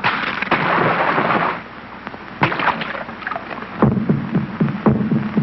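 Cartoon sound effects: a splash-like rush of noise for about a second and a half, then a single sharp knock. A steady drumbeat starts near the end.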